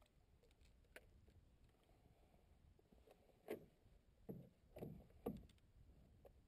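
Faint sounds of a canoe on calm water: one light click about a second in, then four soft knocks or sloshes against the canoe hull in quick succession past the middle, over low near-silence.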